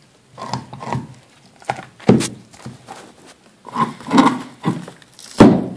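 A dog gnawing and chewing on a big raw soup bone, in irregular bouts, with a few sharp knocks as the bone strikes the board beneath; the loudest knock comes near the end.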